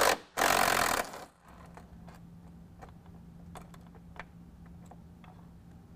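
Ratchet on a long extension backing out a 10 mm grille bolt: a loud burst of rapid clicking near the start, then scattered single clicks as the bolt is turned out.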